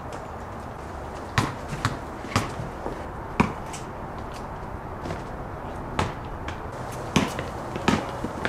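Basketball bouncing on a concrete court: about eight separate sharp bounces at uneven intervals over a steady hiss.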